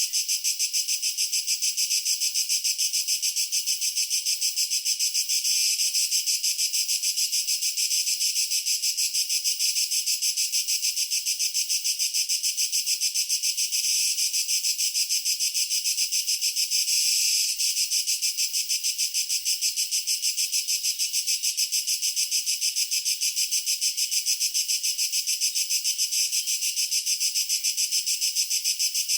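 Tree cricket chirping in a steady, high-pitched trill of rapid, even pulses that never breaks.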